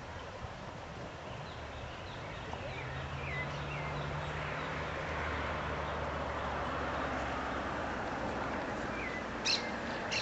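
Bird calls: a few faint short high notes, then two louder sharp calls near the end, over steady outdoor background noise. A low drone, like a distant engine, rises and fades in the middle.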